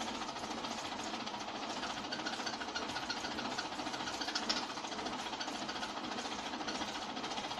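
Hand-cranked 1908 35mm film projector running, its mechanism making a steady, rapid clatter as the film is cranked through, with one slightly louder click about four and a half seconds in.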